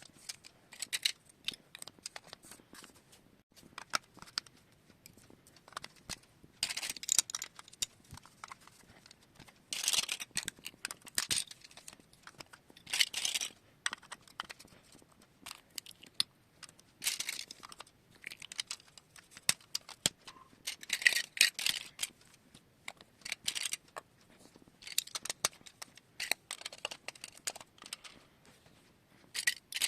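Glass marbles clicking and rattling against a plastic marble run, in bursts about a second long every few seconds, with scattered single clicks between.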